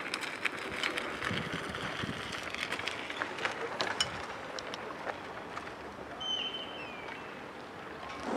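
Outdoor street ambience: a steady background hiss with scattered light clicks and knocks over the first few seconds, then a short high whistle that dips in pitch at its end, a little past the middle.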